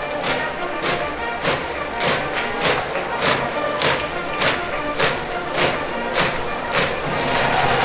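High-school brass band playing a cheering tune in the stands over a steady beat, with a sharp hit about every 0.6 seconds.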